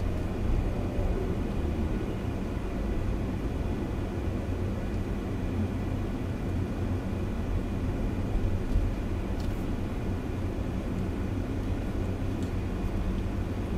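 Steady low rumble of a vehicle's engine and tyres on the road while it drives along, with a faint steady hum running under it.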